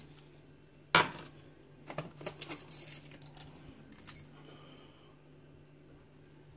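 Small metal objects handled on a bench: a sharp clink about a second in, then a few lighter clicks and taps, as keys or lock tools are picked up and set down.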